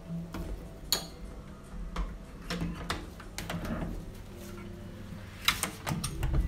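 Handling noise from a phone held at arm's length and moved about: scattered small clicks, knocks and rustles, with a cluster of knocks near the end, over a faint low hum.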